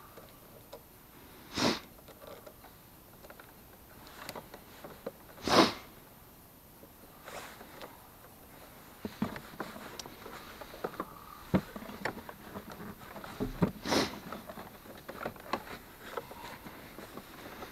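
A person sniffing three times, short hissy sniffs, with small clicks and knocks of handling in between. The Jeep's engine is not running.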